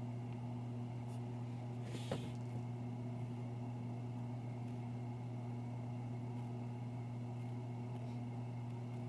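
A steady low hum from a motor or appliance. About two seconds in, a brief rustle and click.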